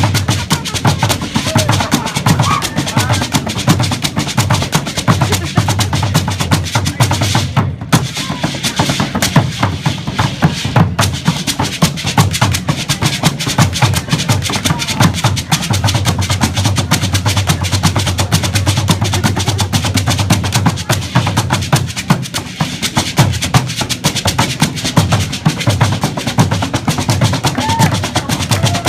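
Percussion music: a dense, rapid run of drum and wood-block-like strikes, with a brief break about eight seconds in.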